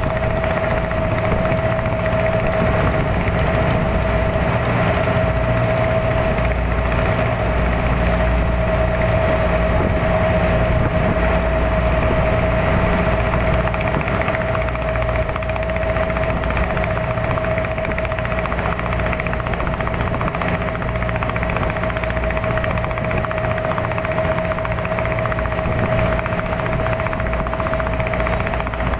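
A motor running steadily at a constant speed: a steady whine over a low rumble, unchanging throughout.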